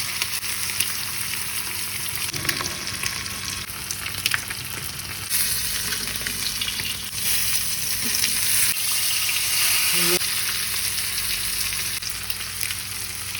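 Marinated fish pieces frying in hot oil in a pan: a steady sizzle with scattered crackles and pops.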